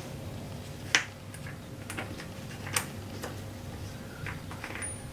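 A few sharp handling clicks of small metal screws and a plastic belt clip knocking against a Kydex holster shell as the clip is fitted. The loudest click comes about a second in and another near three seconds, over a faint steady hum.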